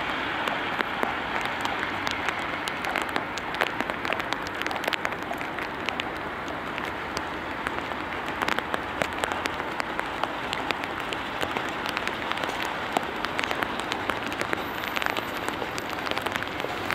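Two horses pulling a carriage across wet ground: scattered hoof clops and wheels rolling, over a steady hiss of rain.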